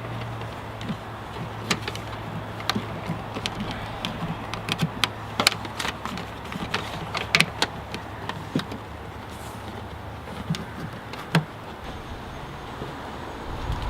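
Irregular light clicks and taps of hand work fitting a CB antenna mount and its coax cable on a pickup truck, over a steady low hum.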